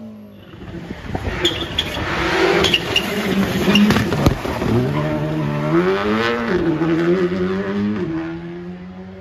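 Škoda Fabia RS Rally2 rally car sliding past on loose gravel, with stones rattling and clattering and a sharp knock about four seconds in. Its engine then pulls hard, the pitch climbing and dropping twice at the upshifts, and fades as it drives away.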